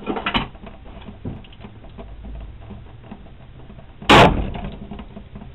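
A single sharp crack about four seconds in, with a short ring after it: a .177 pellet rifle shot, the pellet hitting a plastic soda bottle set against plywood.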